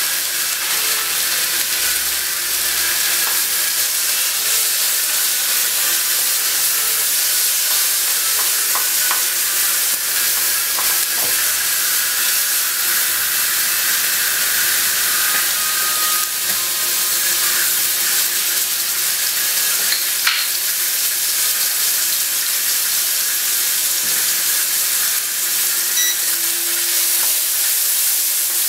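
Chicken, onion and carrot sizzling steadily in hot oil in a wok, stirred with a utensil near the end.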